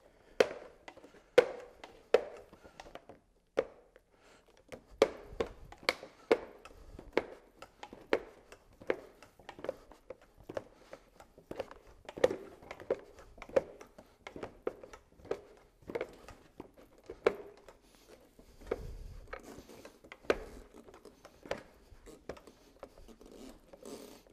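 Hollow vinyl pergola purlins being nudged back one after another by hand. They give a long, irregular run of light clacks and taps, about one or two a second.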